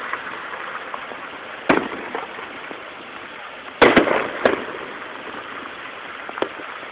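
Aerial fireworks shells bursting: a sharp bang a little under two seconds in, then the loudest part, three bangs in quick succession around four seconds in that trail off, and a small pop near the end.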